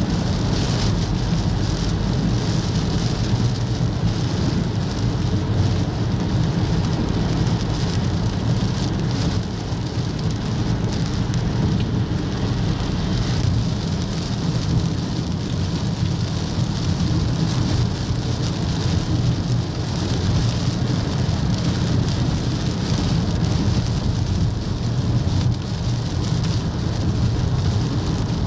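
Torrential rain pouring steadily, with the hiss of traffic on the flooded highway.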